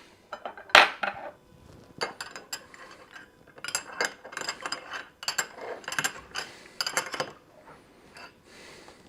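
Irregular metallic clicks and clinks, some with a short ring, as a steel bolt is screwed into a shear beam load cell during mounting-kit assembly. The clicks come in clusters, busiest through the middle.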